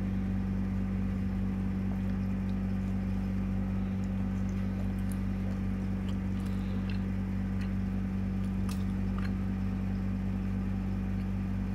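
Steady low hum running unchanged, with a few faint light ticks over it.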